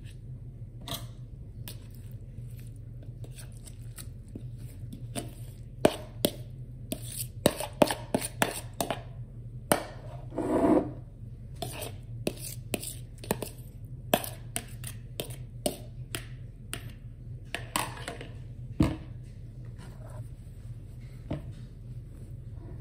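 A spoon scraping and knocking grated cucumber out of a plastic mixing bowl onto a kitchen towel: a run of short sharp knocks and scrapes from about five seconds in, with one longer scrape near the middle. A low steady hum runs underneath.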